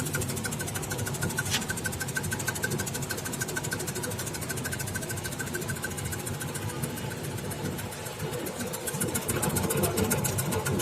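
Motorised onion and cassava slicing machine running steadily, with a fast, even mechanical ticking and one sharper click about a second and a half in.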